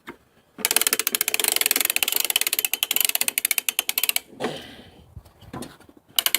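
Wind-up spring starter on a 1965 3 hp Briggs & Stratton engine being cranked: a fast, even ratchet clicking for about three and a half seconds, then starting again near the end.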